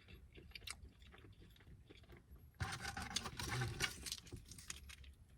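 Quiet chewing and mouth sounds close to the microphone, with a louder stretch of noisy crunching or handling about two and a half seconds in that lasts about a second and a half.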